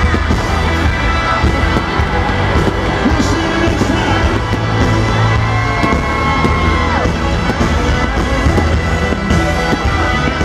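Loud live country-rock band playing through a stadium PA, with a heavy bass beat, and a cheering crowd mixed in.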